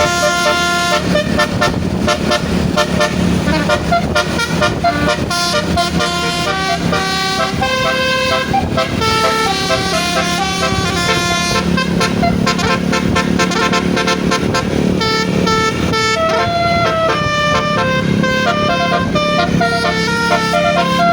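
Basuri musical bus horn playing a tune: a melody of held horn notes broken by runs of quick notes, over the steady low running noise of the bus.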